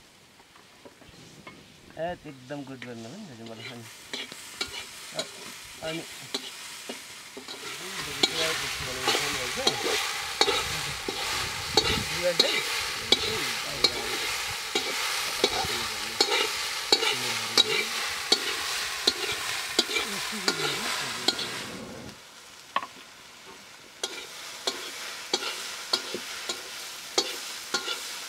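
Chopped potatoes frying in oil in a metal wok, sizzling, with a spatula repeatedly scraping and clacking against the pan as they are stirred. The sizzle swells about eight seconds in and drops back about twenty-two seconds in.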